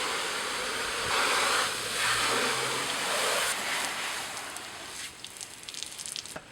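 Water spraying onto a BMW E28's body panels, a hissing that rises and falls, then dies away about five seconds in, leaving faint scattered ticks.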